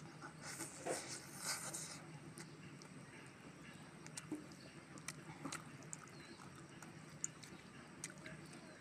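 A person chewing and smacking on a mouthful of masala chicken curry and rice, eaten by hand: a few louder wet chewing sounds in the first two seconds, then scattered soft clicks and smacks.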